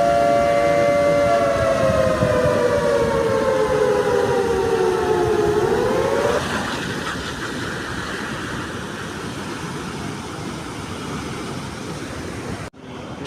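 A loud two-note horn or whistle held steady, then sliding slowly down in pitch for several seconds before cutting off about six seconds in. A steady rushing noise follows.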